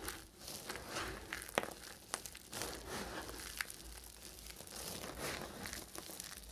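Knife cutting through bars of soap: repeated crunchy scraping strokes, with a few sharp clicks.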